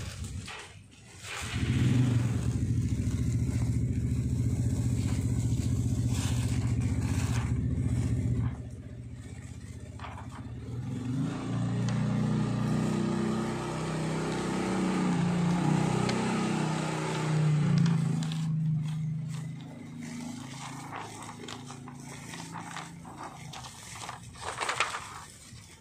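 An engine running steadily, which stops abruptly after about seven seconds. An engine with a wavering pitch follows and fades out about two-thirds of the way through. Underneath, the light scraping crackle of DTF transfer film being peeled off a printed T-shirt.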